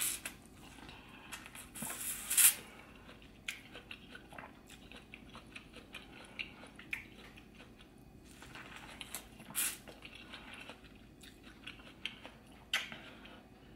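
Biting and chewing of corn on the cob coated in butter sauce: wet mouth sounds and crunchy bites. The loudest bites come about two and a half seconds in, with others near ten seconds and near the end.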